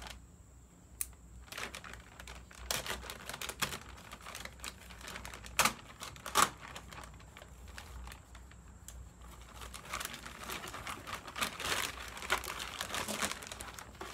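A plastic parts bag crinkling and rustling as it is handled and opened. There are two louder sharp snaps about halfway through, and the crinkling gets denser near the end.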